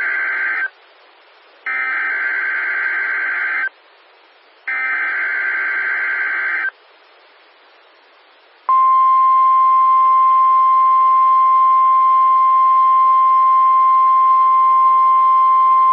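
NOAA Weather Radio SAME alert header: the tail of one burst of buzzy, warbling data tones, then two more bursts of about two seconds each, a second apart, with faint radio hiss between them. About nine seconds in, the steady 1050 Hz warning alarm tone starts and holds. Together these make the weekly required test of the alert receivers.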